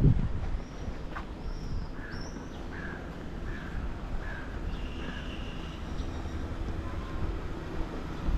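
Outdoor street ambience: a steady low rumble with a knock at the start, and a run of short high chirps repeating about every two-thirds of a second through the middle.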